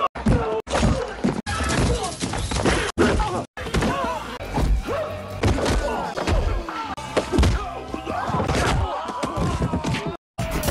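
Film fight-scene soundtracks cut together: background music under repeated thuds of punches and kicks landing, with voices crying out between the blows. The sound drops out for an instant at several of the cuts.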